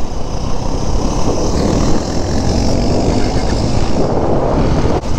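Wind rushing and buffeting over a helmet-mounted microphone on a moving motorcycle, a steady dense rumble with a hiss above it.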